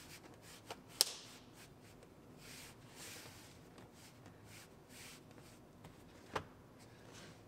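Faint rubbing and brushing on a cloth seat cushion by hand, with a sharp click about a second in and another near the end.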